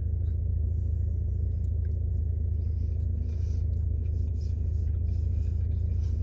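Steady low hum of a parked car running, heard inside the cabin, with faint chewing sounds over it.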